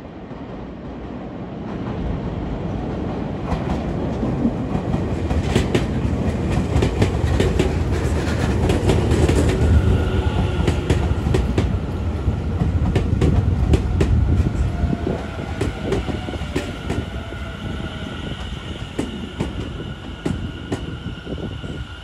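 Tobu 50050 series electric train pulling into a station. A rumble builds as it draws close, with rapid clicking of wheels over rail joints. From about halfway a steady high whine comes in, along with a lower tone that slides down in pitch as the train slows.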